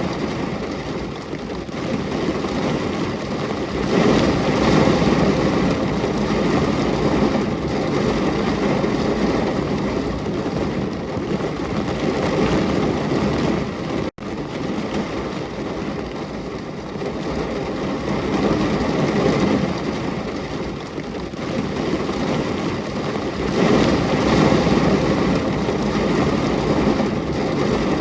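Continuous rain, a dense hiss that swells and eases every few seconds, with a split-second cut-out about halfway through.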